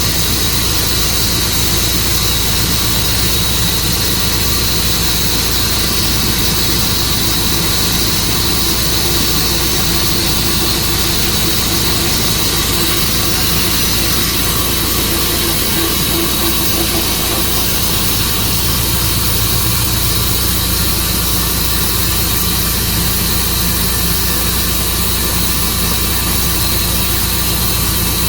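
Tru-Cut sawmill running steadily through the juniper cut: an even engine hum with a steady high whine over it.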